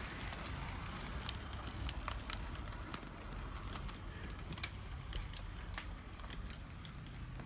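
Brass HO-scale Great Northern Q-1 2-10-2 model steam locomotive running on track: a low, steady rumble of the running gear with irregular light clicks from the wheels on the rails.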